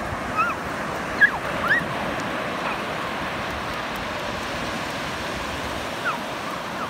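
Ocean surf breaking and washing up the beach in a steady rush. A few brief high cries rise above it, the loudest about a second in.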